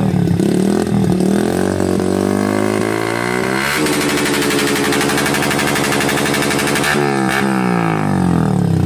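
Honda TMX 125 Alpha single-cylinder four-stroke motorcycle engine breathing through an aftermarket exhaust pipe, revved once. The engine climbs from idle, holds high for about three seconds, then drops back to idle near the end.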